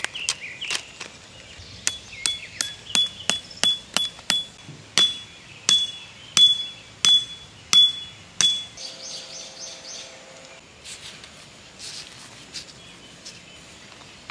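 Camping hammer driving a metal tent peg into gravel: about fifteen sharp metallic strikes, each with a short ring, two to three a second at first and slowing toward the end before they stop.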